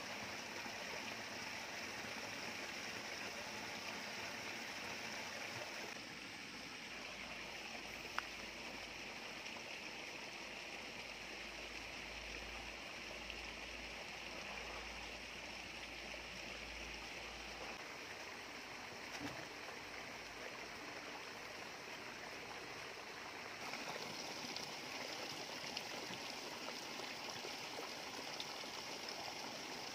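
Steady rush of running water, its tone shifting at cuts about 6 s and 24 s in, with a single sharp tick about 8 s in.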